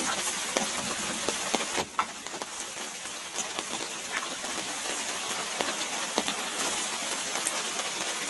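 Steady rain falling, with many separate drops ticking as they strike; the sound dips briefly about two seconds in.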